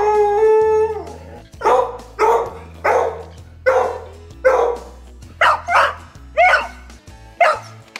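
Beagle baying: one long drawn-out howl, then a run of about eight short loud barks, roughly one a second.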